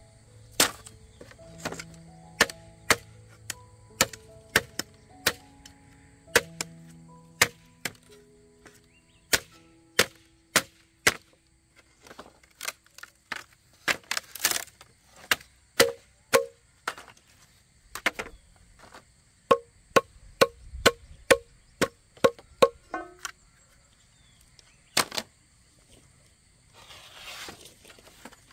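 Repeated sharp chopping blows of a blade on wood, irregular at one or two strokes a second. Soft background music plays under the first part.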